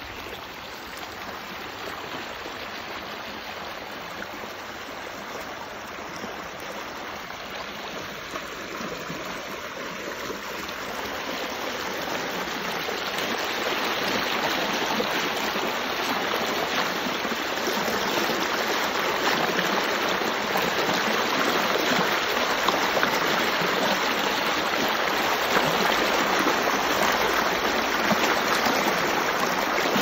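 Shallow river water rushing and splashing over rocks in a small rapid: a steady noise that grows louder about a third of the way through and then holds.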